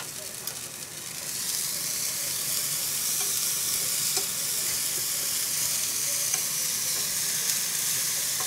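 Eggplant sticks and corned beef sizzling in a frying pan while being stirred with a wooden utensil, with a few faint knocks against the pan. The sizzle swells about a second in and then holds steady.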